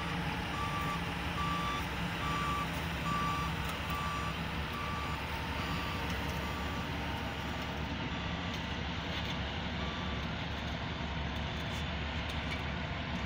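Caterpillar motor grader's diesel engine running steadily, with a reversing alarm beeping about once a second; the beeps fade out about halfway through.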